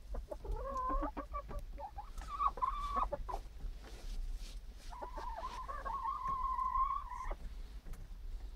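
Domestic hens calling: a string of short clucks and calls in the first three seconds, then one long, even call of about two and a half seconds that breaks off abruptly.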